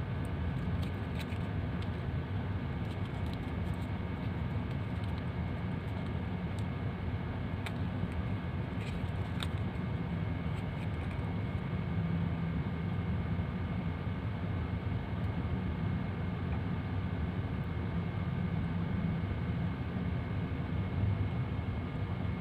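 Steady low rumble of background noise with a faint steady hum, and a few faint light clicks in the first half.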